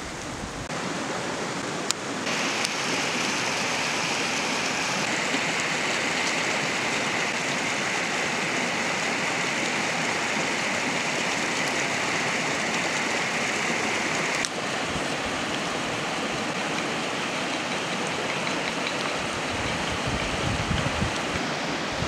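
Steady rushing outdoor background noise, like running water, whose tone shifts abruptly a couple of times. A few soft low knocks near the end.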